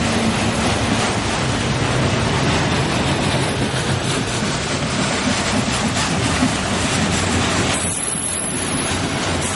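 Freight train of multilevel autorack cars rolling past close by: a steady, loud noise of steel wheels running on the rails, with a low hum underneath.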